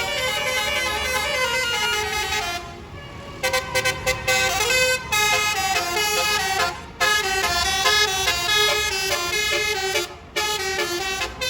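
A bus's telolet horn, a multi-tone musical air horn, playing a quick stepping melody in several phrases, with short breaks about 3, 7 and 10 seconds in.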